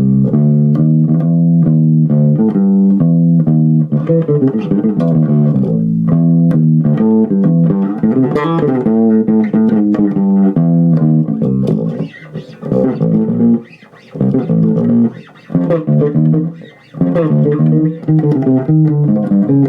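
ESP LTD B-206SM six-string electric bass played through a small 15-watt amp with the lows up: a groove of repeated plucked notes, broken by a few short pauses in the second half.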